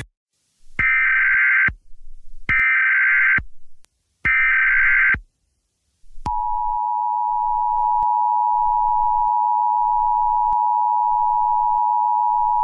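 Emergency Alert System weather alert broadcast through a TV: three one-second bursts of the warbling digital data header, then from about six seconds in the steady two-tone attention signal.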